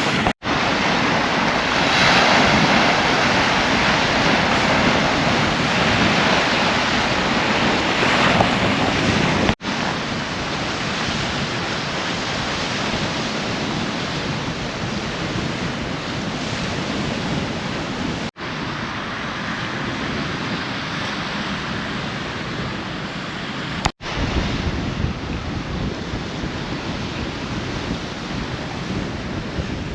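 Sea waves washing on the shore, with wind buffeting the microphone. The sound cuts out for an instant four times, where short clips are joined.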